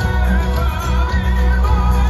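A film musical's song played loudly over an open-air amphitheatre's sound system: a singing voice with vibrato over heavy bass and a steady beat.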